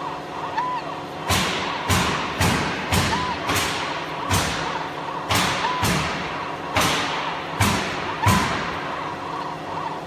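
Fiber laser marking machine running with a steady hum and a short faint beep every few seconds. From about a second in, sharp knocks sound about twice a second at uneven spacing, louder than the hum.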